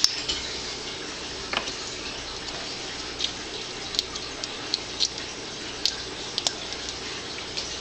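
Scattered small clicks and taps from hands handling small objects, irregularly spaced over a steady background hiss.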